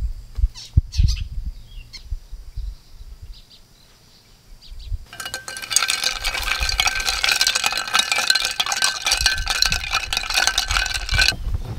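Ice clinking and ringing against a glass coffee server as iced coffee with milk is stirred. The clinking sets in about five seconds in and stops abruptly shortly before the end, after low rumbles and a few light knocks at the start.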